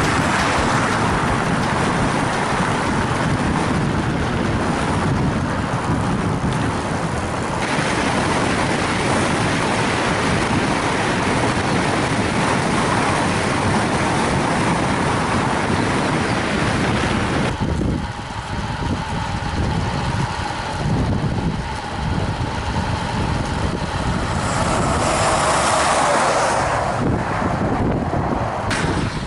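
Wind rushing over the microphone of a bicycle-mounted camera on a fast road descent: a steady loud rush that eases off for a few seconds past the middle, then picks up again.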